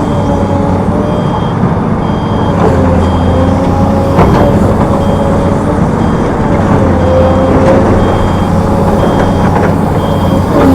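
A heavy machine's reversing alarm beeps steadily, about once every three-quarters of a second, over a diesel engine running. Two sharp knocks come about a third of the way in.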